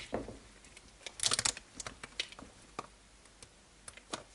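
Small sharp clicks and light rattles of a screwdriver, small screws and plastic parts being handled on an RC buggy chassis, with a quick cluster of clicks about a second in and scattered single ticks after.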